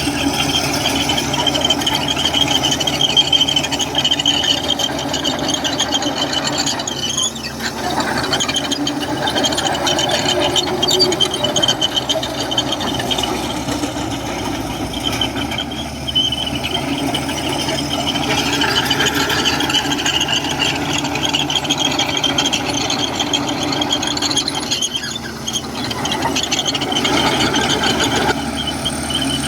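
Komatsu crawler bulldozer working, its steel tracks squealing steadily over a running diesel engine. The sound eases briefly a few times, then picks up again.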